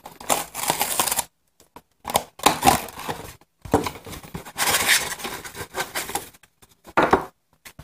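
A cardboard tea box is torn open along its perforated flap and the paper tea bags are pulled out, giving tearing and crinkling of cardboard and paper. It comes in several bursts with short pauses between them.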